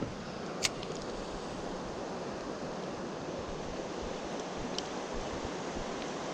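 Fast river current rushing steadily, with a sharp click just under a second in and a fainter one near the end.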